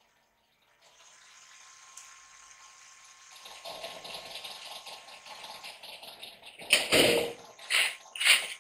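Metal filing cabinets rattling and clattering, building to a drawer sliding open with three loud metallic crashes in the last two seconds.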